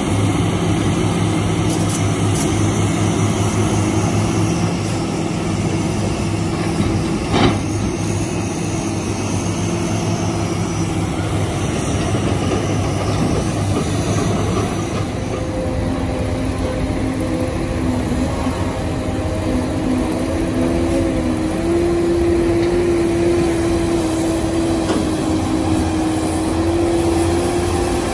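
Diesel engines of a hydraulic excavator and dump trucks running steadily under work, with one sharp knock about seven seconds in. From about halfway, a higher engine note comes in, rises slightly and holds.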